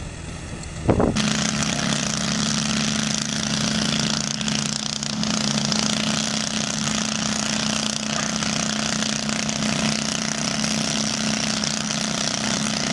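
Small tractor engine running steadily at high revs. It starts abruptly about a second in, after a quieter engine sound.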